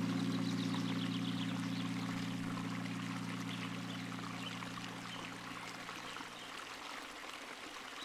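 Running water with a stream-like rush, over a held low chord of background music that slowly fades out; a new chord comes in right at the end.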